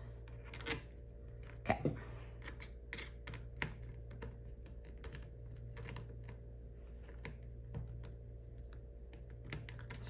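Irregular small clicks and taps of screws and the plastic connector housing being handled as the screws are set into the back of a Legrand L21-30C twist-lock connector, over a steady low hum.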